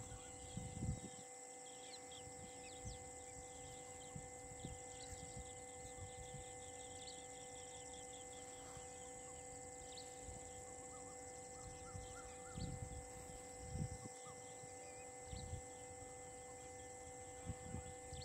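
Faint outdoor ambience: scattered bird chirps over a steady background hum, with a few low thumps.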